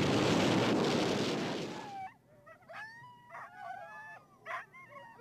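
The rumble of an artillery blast dying away over about two seconds, then a dog whimpering in short, high whines that bend up and down.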